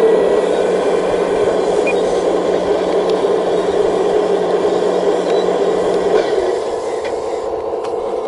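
Full-size diesel excavator running steadily under load, a dense steady engine drone; about six and a half seconds in its low hum drops away and the sound eases slightly.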